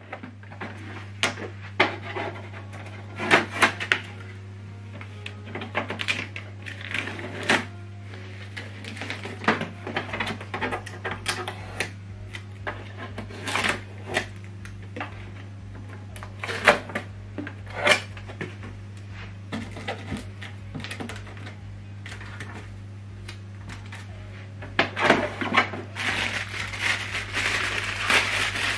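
Unpacking handling noises on a plastic printer: blue packing tape peeled off the body, with scattered clicks and knocks of the lid and parts being handled. Plastic wrapping crinkles near the end.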